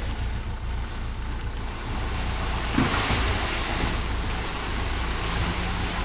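JCB 3DX backhoe loader's diesel engine running with a steady low drone, while a rushing hiss swells from about halfway and fades near the end as soil is dumped from the bucket into a tractor trolley.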